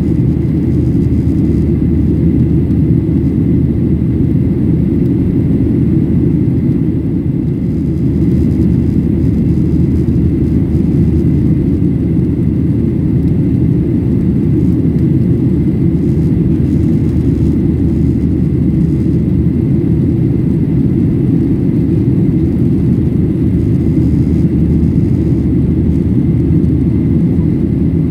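Steady cabin noise inside a Boeing 737-800 climbing after takeoff: a low rumble of its CFM56 turbofan engines and the airflow, with a faint steady high tone over it.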